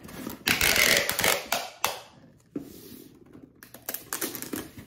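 Double-sided tape pulled off a handheld tape dispenser with a noisy rasp, twice, with small clicks and crinkling of wrapping paper as it is pressed onto a gift box.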